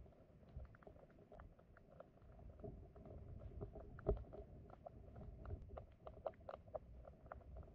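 Stream water flowing among rocks, heard underwater: a faint low rumble of current with many small irregular clicks and ticks, and one louder knock about four seconds in.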